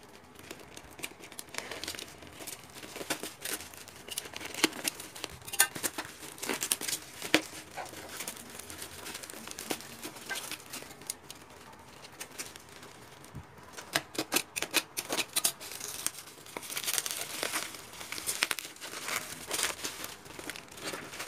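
Parcel wrapping being torn open and crinkled by hand, in irregular bursts of crackling and tearing as the package is unwrapped.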